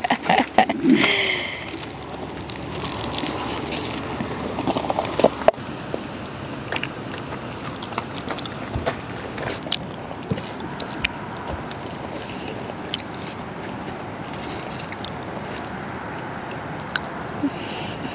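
Steady rush of a small river, with scattered faint clicks and taps over it.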